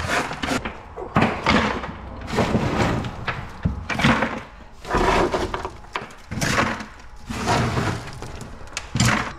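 Handfuls of small rocks and grit scraped across a plastic pickup bed liner and tossed into a plastic bucket, clattering in irregular bursts about once a second.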